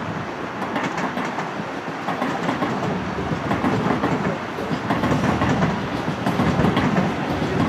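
Deutsche Bahn ICE passenger train passing close by: a steady rumble of wheels on the rails with clicks at the rail joints, growing louder toward the end.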